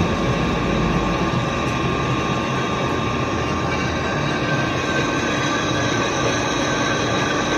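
Metal lathe running as it bores a pipe: a steady mechanical hum with several constant high whining tones over it.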